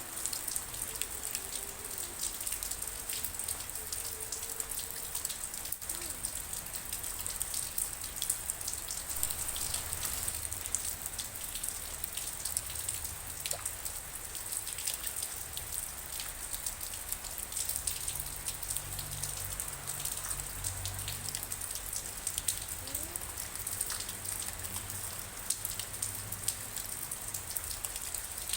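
Steady rainfall: a dense, even patter of many individual drops striking a surface.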